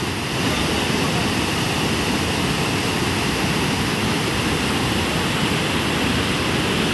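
Steady rushing of heavy water, a dense, unbroken hiss and rumble that does not change.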